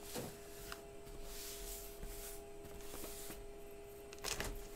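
A printer running with a steady hum. Over it, a box cutter scrapes and slices along the packing tape of a cardboard case in a few scratchy swipes, with a couple of sharp clicks near the end.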